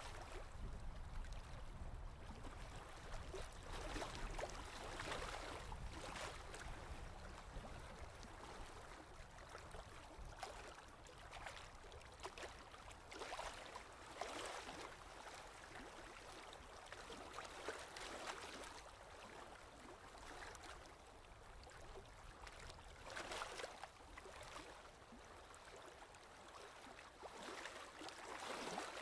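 Drawing strokes on paper: a pen or pencil scratching across the page in short, irregular strokes, over a faint low rumble.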